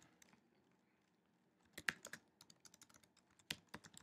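Computer keyboard typing: after about a second and a half of near silence, a quick, irregular run of soft keystrokes.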